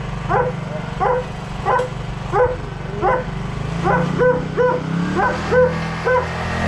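A dog barking over and over, about a dozen short barks, coming slightly faster in the second half, over a low steady hum.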